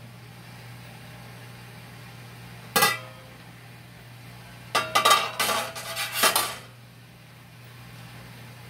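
Enamelled steel water-bath canner lid clanking: one sharp ringing clank about three seconds in as it comes off the pot, then a second and a half of clattering as it is set down on the electric stovetop.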